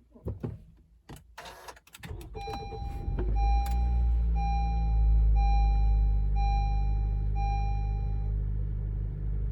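A few clicks, then the 2017 Honda CR-V's 1.5 L turbo four-cylinder starts about two seconds in and settles into a steady low idle, heard from inside the cabin. Through this a dashboard chime beeps about once a second, six times. The owner says the idle is slightly rough for the first few seconds of a cold start, and he suspects a blown head gasket.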